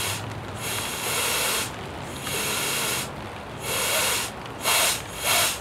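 Compressed air hissing in a series of short bursts, roughly one a second, as it is blown into a submerged radiator to pressurize it and find pinhole leaks.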